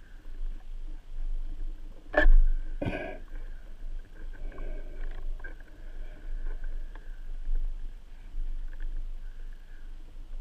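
Speargun shot heard underwater: two sharp clicks less than a second apart, about two seconds in, as the band-powered spear is released and strikes. A faint steady high tone and low rumble run underneath.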